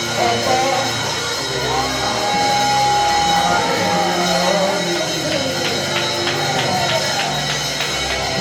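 Live gospel worship music: sustained band chords with one long held high note in the middle, over light, evenly spaced percussion ticks.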